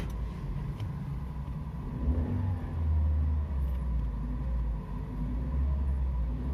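Toyota Avanza engine starting and running, heard from inside the cabin. Its low, steady hum grows louder about two seconds in and then holds even. The immobilizer is off, so the newly registered key is accepted.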